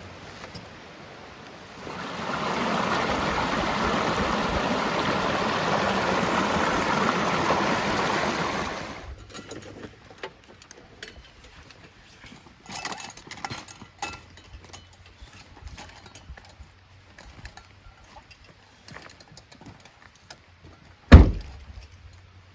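Close rushing water of a mountain stream, a steady loud noise for about seven seconds that cuts off suddenly. Then quiet with scattered small clicks and knocks, and one heavy thud near the end.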